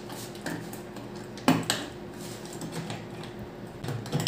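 Plastic clicks and knocks from a hard-shell Studds motorcycle top case as its front latch and lid are worked by hand, with one sharp click about a second and a half in and lighter clicks around it.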